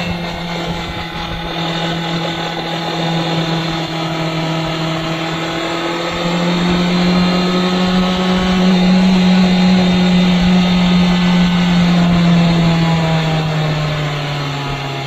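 Honda CBR650R inline-four engine running at steady revs on the move, with wind buffeting the microphone. It gets louder about six seconds in, and its pitch drops near the end as the revs come down.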